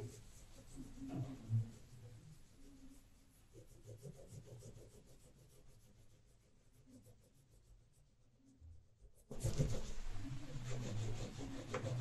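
Oil pastel scrubbing back and forth on paper while colouring in, faint at first and louder and denser from about nine seconds in.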